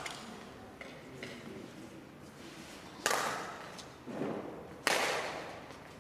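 Badminton rackets striking a shuttlecock twice, about two seconds apart, in a rally; each sharp hit rings on in the echo of a large sports hall.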